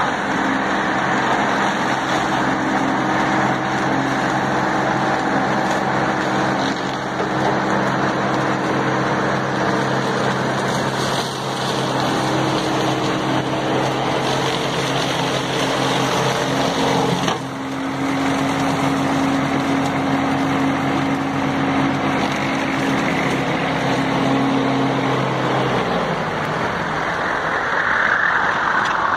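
New Holland 7630 tractor's diesel engine running steadily under load while its articulated boom mower cuts roadside grass and brush, a continuous engine hum under the whir of the cutter. The engine tone drops away about 26 seconds in.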